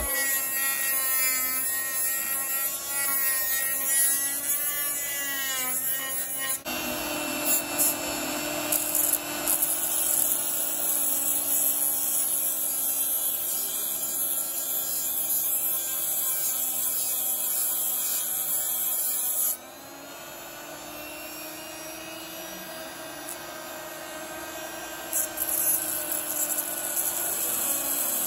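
Homemade rotary tool's RS560 DC motor spinning a sanding drum, its whine wavering in pitch under load as it sands the edge of a PVC sheet. Partway through it switches to grinding a thin metal blade, a steady hiss of abrasive on metal that softens for a few seconds and picks up again near the end.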